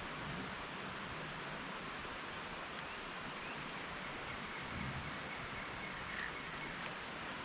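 Steady outdoor background hiss, with a faint high rapid trill of short notes a little past the middle.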